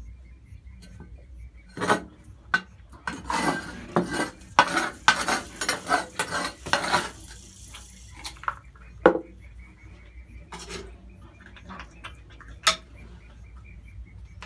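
Porcupines' quills clicking and clattering against each other: a dense rattling run of several seconds, then a few scattered single clicks.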